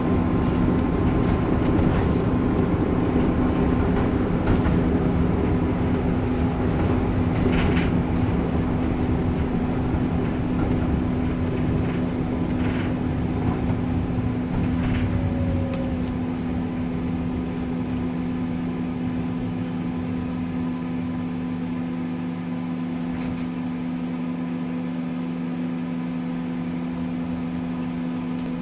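T8K-503 tram running on its rails, its rumbling running noise dying away from about halfway through as it slows. A steady electrical hum from the tram's equipment carries on throughout.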